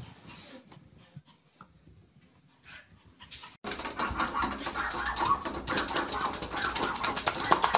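Faint scattered sounds for about three and a half seconds, then a sudden loud stretch of a small dog and a cat pawing at each other through a glass sliding door: rapid tapping and scratching of paws on the glass.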